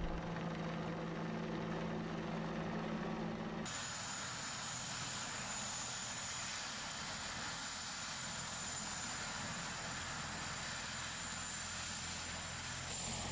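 A steady low mechanical hum of several tones that cuts off about four seconds in. It gives way to faint outdoor noise with a low engine hum and a thin steady high whine.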